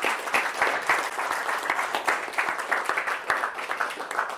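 Audience applauding: many hands clapping together at the end of a talk, starting to fade right at the end.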